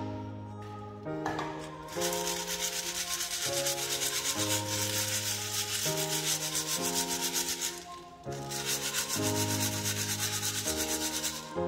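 Hand-held metal soil sieve shaken over a compaction mold, fine soil rasping through the wire mesh in a quick rhythm of about six strokes a second, in two bouts with a short break near the middle.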